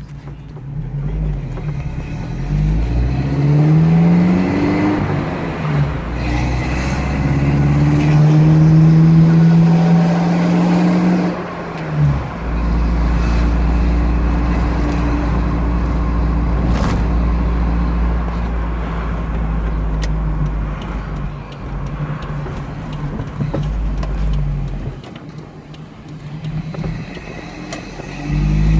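Engine and full exhaust of a 1991 Toyota pickup under way, revving up through the gears: the note climbs in pitch several times with drops at the shifts, then holds steady at a cruise, eases off near the end and picks up again.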